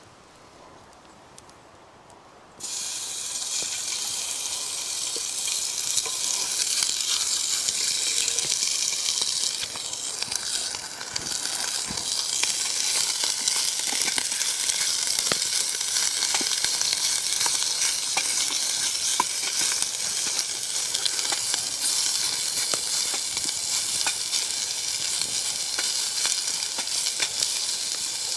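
Stir-fry ingredients tipped into a hot steel pot over a small wood-burning stove, bursting into a sudden sizzle about two and a half seconds in, then frying steadily while being stirred, with faint scrapes and taps of a wooden spatula.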